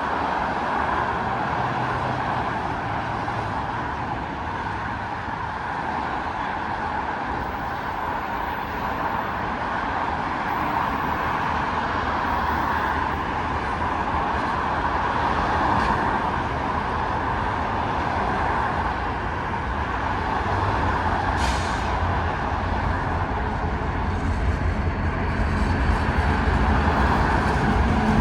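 A train rolling past, the steady noise of wheels on rail, with a deeper rumble building over the last several seconds.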